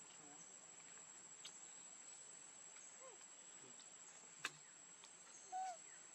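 Faint steady high-pitched insect drone, with a sharp click about four and a half seconds in and a brief call that rises and falls about a second later.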